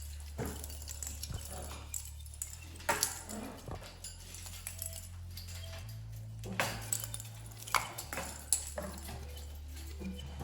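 Scattered light clinks and taps, a few of them sharper, over a low steady hum.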